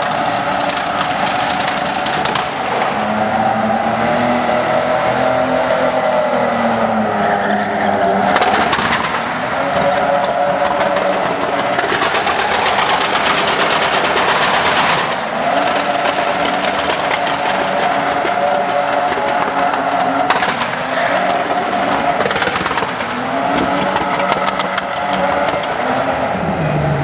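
Toyota Land Cruiser engine revving hard, its pitch rising and falling over and over, while the spinning rear tyres squeal and scrub through a smoky drift. The tyre noise swells loudest about halfway through.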